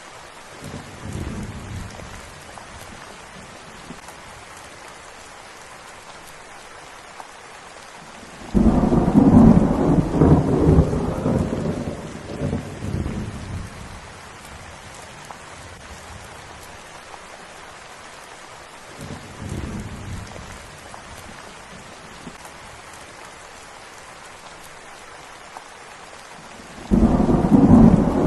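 Steady rain falling, with rolls of thunder: a faint rumble about a second in, a loud rumble that breaks in suddenly around eight seconds in and dies away over about five seconds, another faint one past the middle, and a second loud one starting near the end.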